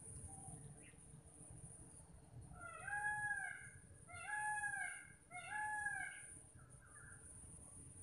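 Common myna calling three times, a little over a second apart, each call drawn out and rising then falling in pitch. A steady high insect drone runs underneath.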